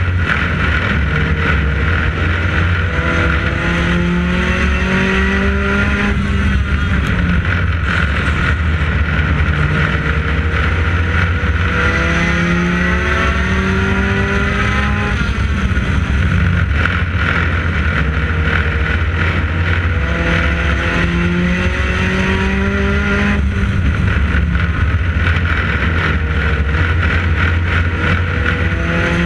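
Onboard sound of a U-Car class race car at racing speed: the engine's pitch climbs for several seconds down each straight and drops away as the driver lifts for the turns, about every eight to nine seconds, over steady loud wind and road noise.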